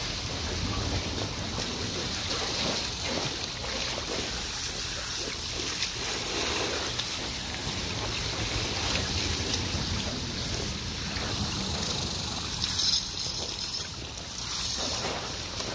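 Garden hose spray nozzle running steadily, its water splashing onto a wet dog and a plastic tarp, with a low wind rumble on the microphone.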